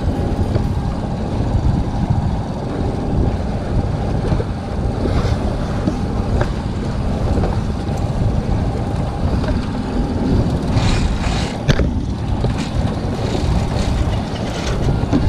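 Wind buffeting the microphone over the rush of water along the hull of a small sailboat under way, with a couple of sharp knocks about three-quarters of the way through.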